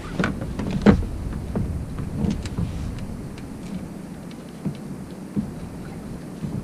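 Low rumble of water and wind around a plastic fishing kayak, with scattered sharp knocks and clicks while a fish is reeled in.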